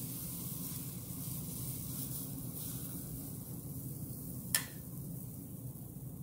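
Cake batter sizzling softly on the hot nonstick plate of a preheated Dash mini griddle as it is spread out with a fork, with a single sharp click about four and a half seconds in.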